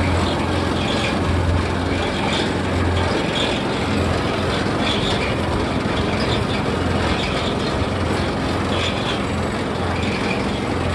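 Gas-powered trommel wash plant running: its small engine turns the old steel drum with a steady rumble and a low hum. Higher-pitched metallic noises from the turning drum recur about every second or two.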